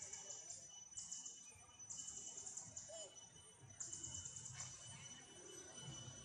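Faint outdoor ambience of insects trilling in short, high-pitched bouts of about a second each, starting and stopping repeatedly over a thin steady high tone.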